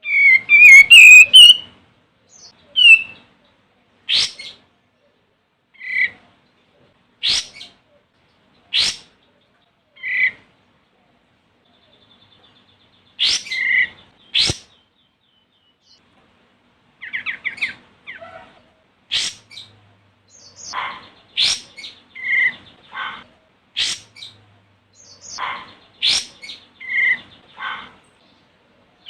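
Olive-winged bulbul calling: a rapid chattering burst at the start, then short, sharp calls a second or two apart, growing busier in the second half.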